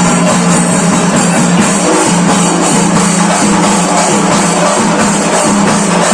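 Loud music with drums and percussion.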